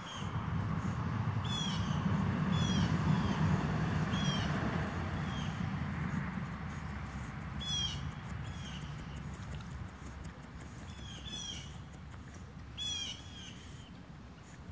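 Short high-pitched chirping animal calls, repeated about every second or so. Under them is a low rumble that is loudest in the first few seconds and then fades.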